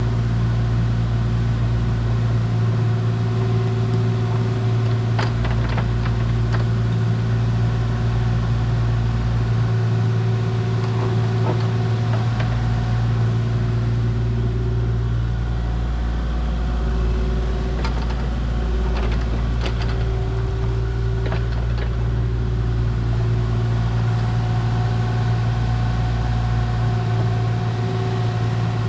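A large engine running steadily at a constant pitch, with a few short knocks and clanks scattered through it.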